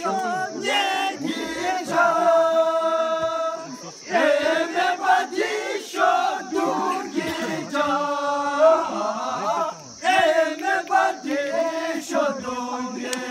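A group of men singing a chant together, with long held notes about two seconds in and again past the middle.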